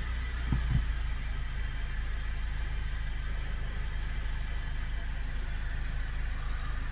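Range Rover Evoque's 2.0-litre diesel engine idling steadily just after start-up, heard from inside the cabin as an even low hum.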